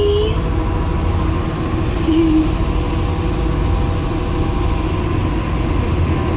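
Steady low vehicle rumble heard from inside the cabin, with faint steady hums above it. A short held tone ends just after the start.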